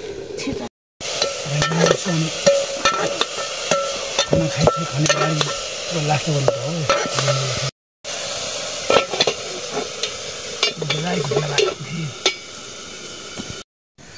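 Food sizzling in a pan as it is stirred, the utensil repeatedly knocking and scraping against the pan. The sound cuts out abruptly twice for a moment.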